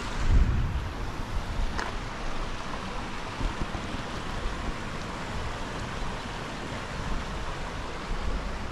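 Small stream running over rocks, a steady rush of water, with wind buffeting the microphone in low gusts, strongest about half a second in.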